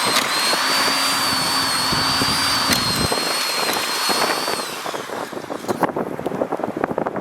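A motor running with a high steady whine, which fades away about four and a half seconds in, followed by a run of short sharp knocks and scrapes.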